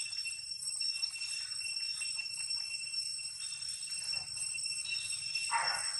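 Steady high-pitched ringing drone of several pure tones from insects, with a short falling call near the end.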